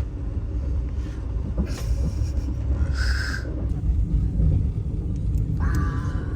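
Steady low rumble of a passenger train running, heard from inside the carriage. A short high-pitched sound comes about three seconds in, and a brief tone follows near the end.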